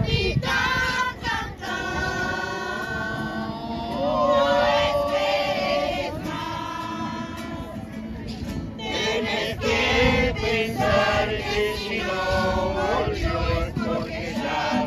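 Mixed choir of men and women singing phrases of long held notes, accompanied by an acoustic guitar.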